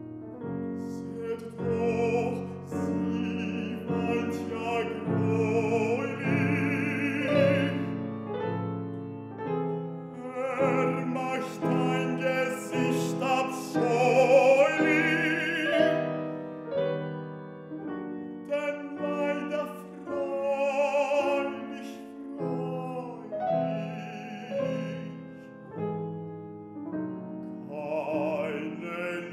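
Baritone singing an art song in full classical voice with vibrato, accompanied by a grand piano.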